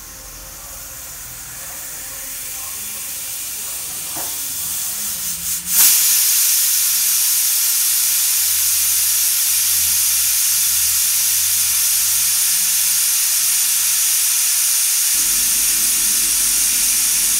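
Pressure cooker on the stove building up pressure: a hiss of escaping steam slowly grows, then about six seconds in it suddenly jumps to a loud, steady hiss as the weighted whistle valve vents. This is the cooker whistling at full pressure, one of the four whistles the mutton is cooked for.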